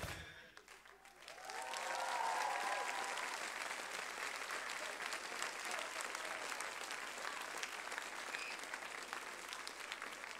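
Audience applause at the end of a stage dance performance, swelling up about a second and a half in with a few cheering whoops, then going on steadily.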